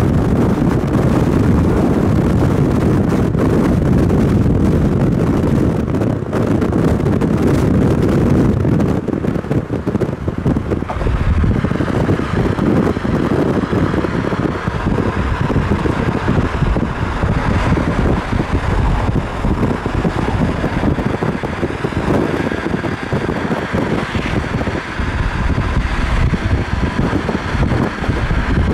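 Car driving at speed: steady road and wind noise, with wind buffeting the microphone.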